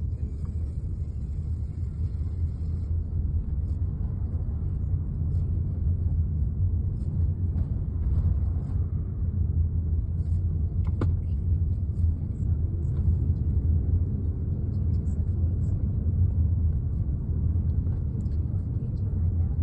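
Steady low rumble of a car on the move: engine and road noise. A single short click about eleven seconds in.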